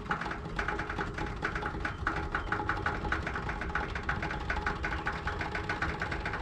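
A fast, even mechanical clicking or rattling, about ten clicks a second, over a faint steady hum.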